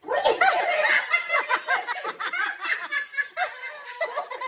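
A person laughing hard in rapid, high-pitched snickering fits.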